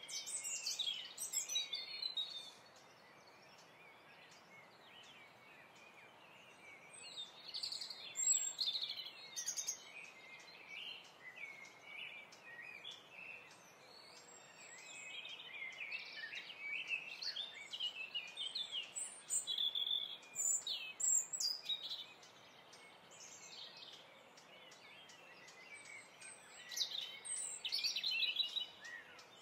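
Small birds chirping and singing in bursts, with lulls of a few seconds between them, over a steady faint hiss.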